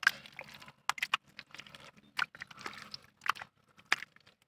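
Thick wet mud squelching, with a string of short, irregular wet smacks and clicks as it is pushed and worked around a buried eel. The sharpest smacks come at the very start and again near the end.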